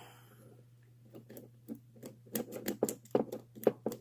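Steel lock pick clicking and scraping in the keyway of a CTT 64 mm laminated padlock as it is raked with a double Bogota rake. The irregular run of small sharp clicks starts about a second in and grows quicker and louder toward the end.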